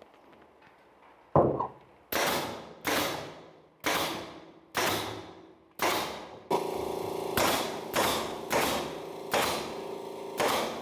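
Pneumatic nail gun firing nails through a blockboard panel into wooden battens: about a dozen sharp shots, roughly one every 0.7 s, each with a short ringing tail. A steady hum joins about halfway through.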